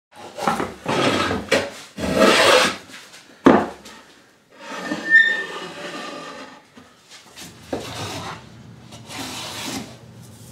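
Hand plane taking strokes along a wooden board: a run of rasping, shaving strokes, with one sharp wooden knock about three and a half seconds in.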